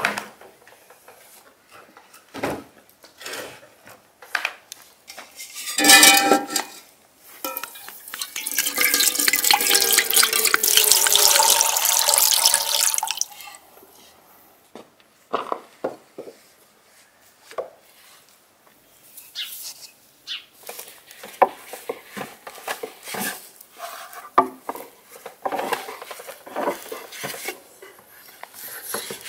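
Water poured into a large aluminium pot, a steady rush lasting about five seconds. Before it come scattered wooden knocks and a short loud clatter, and after it light taps and clicks.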